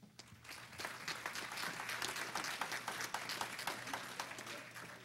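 Banquet audience applauding, building up within the first second and dying away near the end.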